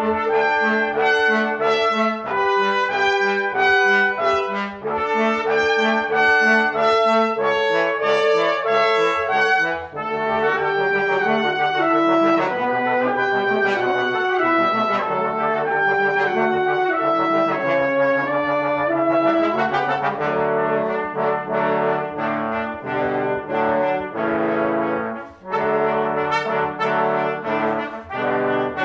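Brass quintet of trumpets, French horn and trombones playing a contemporary chamber piece: short repeated chords over a held note, changing about ten seconds in to smoother moving lines, and returning to short repeated chords near twenty seconds.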